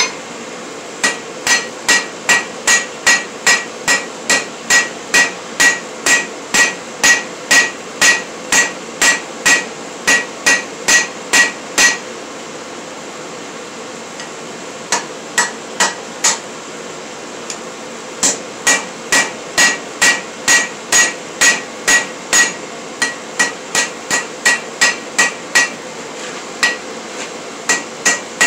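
Hand hammer striking red-hot steel bar on an anvil, hand-forging without a power hammer: steady blows about two a second, each with a metallic ring from the anvil. The hammering breaks off for about three seconds in the middle, resumes with a few blows, stops briefly, then carries on steadily.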